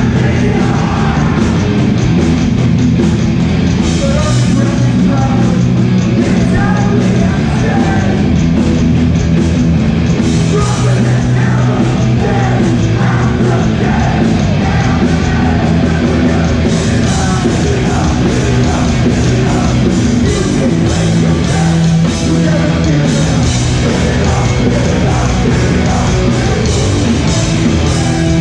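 Hardcore punk band playing live at full volume: distorted guitars, bass and drums with shouted vocals.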